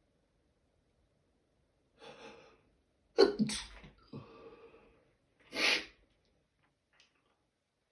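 A person sneezing: a quick intake of breath, then one loud, sudden sneeze trailing off into breathy noise, and about two seconds later a second, shorter burst of breath.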